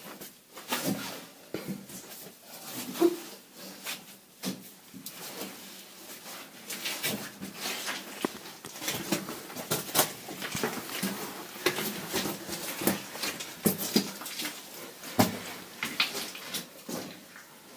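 Irregular scuffs, scrapes and knocks of people moving crouched over the rock and loose stones of a cave floor, with the rustle of their clothing.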